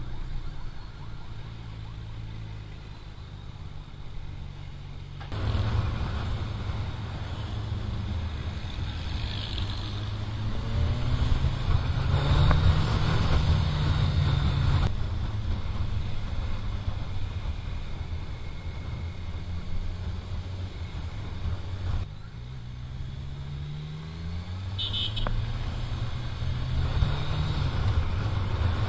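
Motorcycle engine heard from the rider's seat, accelerating with pitch rising and then dropping at gear changes, over steady wind and road noise. The sound jumps abruptly in level a few times.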